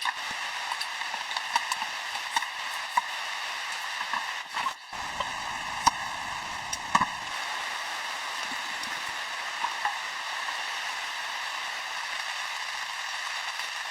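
Light rain falling steadily, a soft hiss with scattered louder drops ticking, briefly dropping out just under five seconds in.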